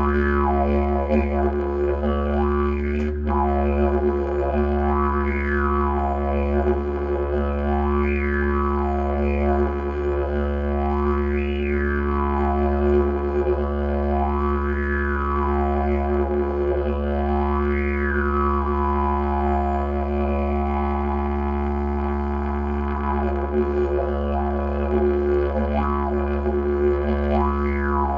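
Bamboo didgeridoo played as one deep, unbroken drone, its overtones swept up and down in slow arches about every three seconds.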